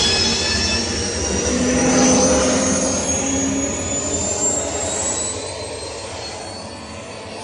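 Stock jet-turbine sound effect, the one shared by the 1966 Batmobile, Luke's landspeeder and the DeLorean time machine. A high turbine whine climbs slowly in pitch over a low rumble and eases off in loudness near the end.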